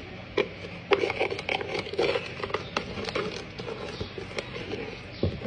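A kitchen utensil scraping and tapping, with irregular clicks and knocks as food is scraped off.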